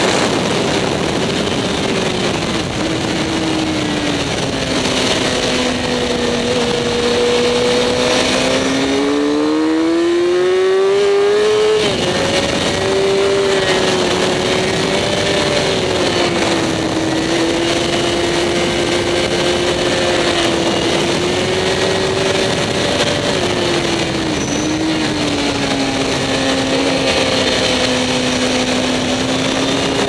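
Sport motorcycle engine heard from an onboard camera: the engine note falls at the start, climbs steadily under acceleration, drops sharply at a gear change about twelve seconds in, holds fairly level, then falls again a little after twenty seconds. Wind rush over the bike runs underneath.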